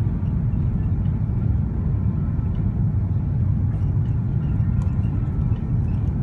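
Steady low rumble of engine and airflow noise heard inside the cabin of a Finnair Airbus A330-300 on final approach.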